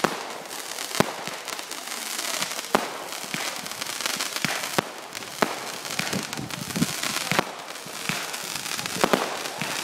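Fireworks going off: a steady crackling fizz with sharp bangs every second or two.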